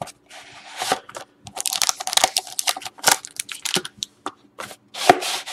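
Cardboard trading-card box being torn open and pulled apart: irregular tearing, scraping and rubbing of the card stock as the inner sleeve is slid out, with a sharp tap near the end.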